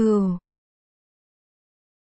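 A voice says the Vietnamese word "cừu" (sheep) once, briefly and with falling pitch, then complete silence.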